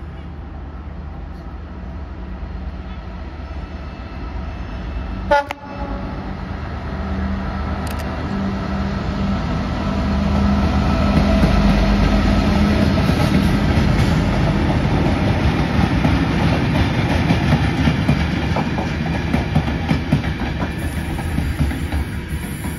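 Locomotive-hauled freight train with empty flat wagons approaching and passing. There is a short, sharp horn toot about five seconds in. Then the locomotive's steady drone and the rumble and clatter of the wagons grow loud, easing off near the end.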